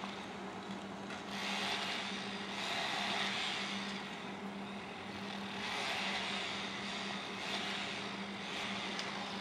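Outdoor background noise: a steady hiss that swells and eases every second or two over a constant low hum.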